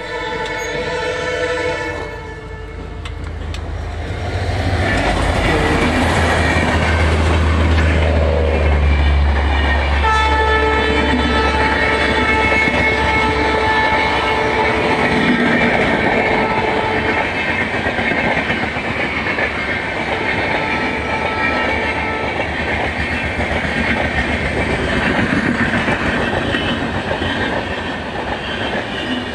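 Humsafar Express train passing at speed: a train horn sounds at the start, then the locomotive goes by with a heavy low drone, the horn sounds again about ten seconds in and holds for several seconds, and the coaches rush past with wheels clattering over the rail joints.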